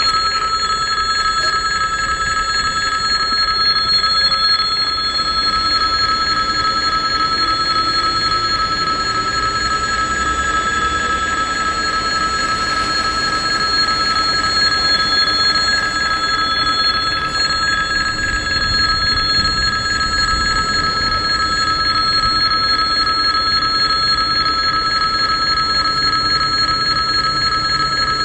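Russian level-crossing warning bell ringing steadily, the crossing's signal that a train is approaching while the barrier is down.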